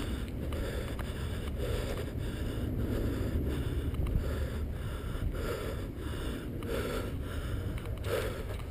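Breathing and body movement close to the microphone, in even strokes about every 0.7 seconds, over a steady low rumble.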